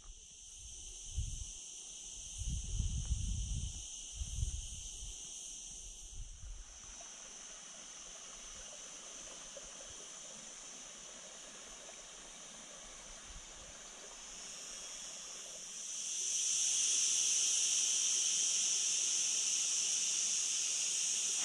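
Insects chirring in a steady high chorus. A few low rumbles come in the first seconds, and a broad hiss builds up and grows clearly louder about three-quarters of the way through.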